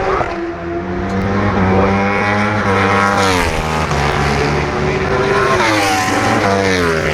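Racing motorcycle engines running hard on the track, several at once, their pitch rising and falling with gear changes and passes, with steep drops about three seconds in and near the end.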